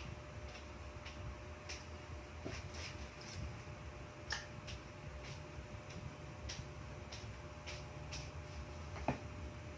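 Faint, irregular light clicks and taps of kitchen handling over a low steady hum. About nine seconds in comes one louder knock, a stainless steel bowl being set down.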